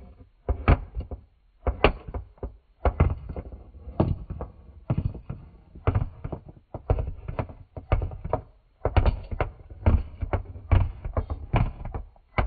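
A plastic Littlest Pet Shop figurine tapped again and again on a textured floor mat as it is hopped along: irregular dull taps, about one to two a second.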